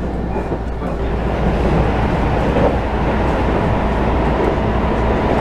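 Electric commuter train running at speed, heard from inside the passenger car: a steady rumble of wheels and running gear on the track, getting a little louder about a second and a half in, while crossing a steel truss bridge.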